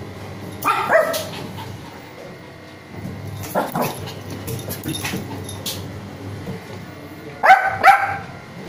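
Small Shih Tzu barking in short, high yaps: two about a second in, one around three and a half seconds, and a quick run of several near the end, with faint clicks in between.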